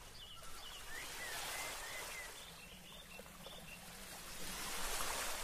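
Beach ambience of ocean waves washing in, the surf swelling about a second in and again near the end, with faint bird chirps.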